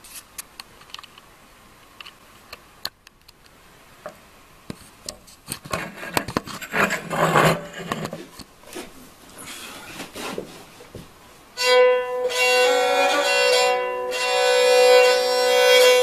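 Scattered clicks and rustling of handling. Then, about twelve seconds in, a bowed tagelharpa strung with cheap viola strings starts playing, several strings sounding together in a steady drone-like chord.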